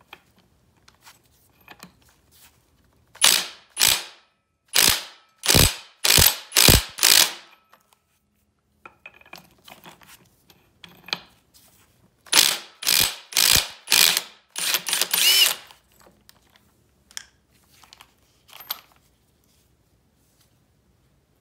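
Hand socket ratchet clicking in short back-and-forth swings, two runs of six or seven strokes each with a pause between them, as bolts are turned out.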